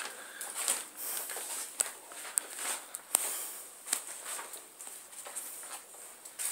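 Footsteps on the bare floor of an empty upstairs room: irregular sharp knocks and scuffs, about one every half second to a second, over a steady hiss.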